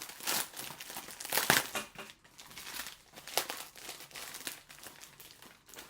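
Packaging crinkling and tearing as it is pulled open by hand, in irregular sharp rustles, the loudest about one and a half seconds in.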